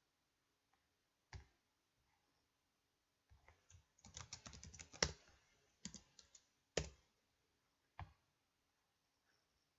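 Faint computer keyboard typing: a quick burst of keystrokes entering a short name, with a few single sharp clicks before and after, the last as the mouse is on a button.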